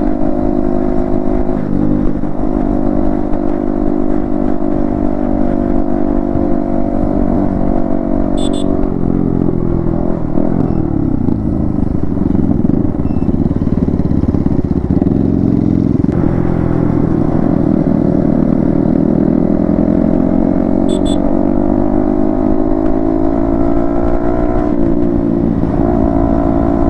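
Yamaha MT-15 V2's 155 cc single-cylinder engine with an Akrapovic exhaust, running under way: a steady engine note that changes pitch about a third of the way in, wavers, then climbs slowly and drops back near the end.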